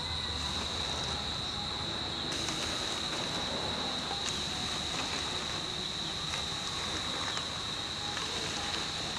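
Crickets trilling steadily on one high note, with a faint hiss joining about two seconds in.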